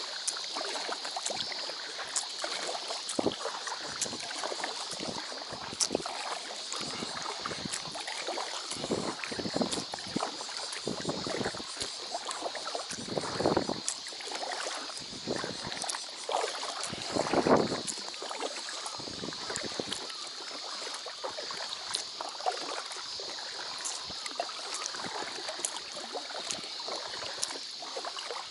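Small waves lapping against the hull of an inflatable packraft, with clothing rustling right against the microphone and scattered small knocks and clicks; louder rustles come about 13 and 17 seconds in.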